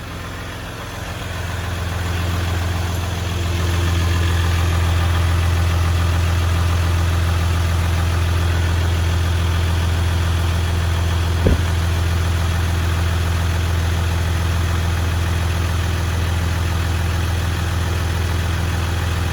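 Jeep Gladiator's 3.0-litre EcoDiesel V6 turbodiesel idling with a steady low hum after a fuel filter change. It gets louder over the first few seconds, then holds level, with a single short knock about eleven seconds in. The engine is running normally on the new filter, which the owner calls A-okay.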